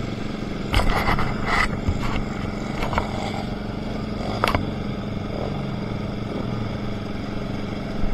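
Enduro motorcycle engine running at a steady, unchanging pitch, with a few short, sharp knocks and clatters over it.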